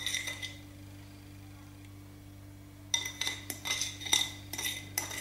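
A metal fork clinking and scraping against a ceramic plate while scooping up sugar. There is a brief clink at the start, then a quick run of ringing clinks from about three seconds in.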